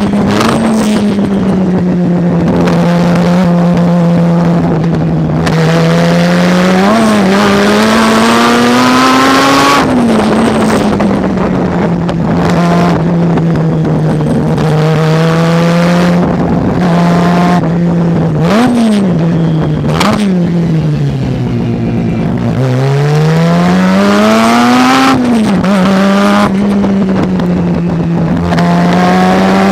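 Race car engine running hard at lap pace. Its pitch climbs through each gear and drops sharply at every shift, with short throttle blips on the downshifts. Near the end it pulls from low revs in one long rise out of a slow corner.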